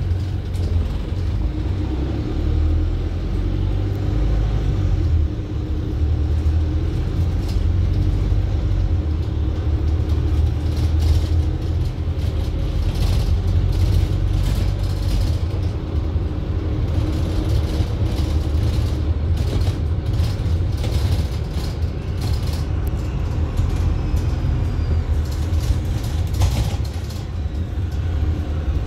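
Wright StreetLite single-deck bus heard from inside while on the move: a steady low engine and road rumble, with a run of short clicks and knocks through the middle.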